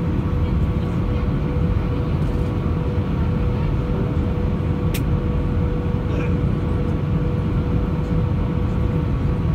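Steady cabin noise inside an Airbus A319 on approach to land: a low rumble of engines and airflow with a steady hum over it, and one sharp click about halfway through.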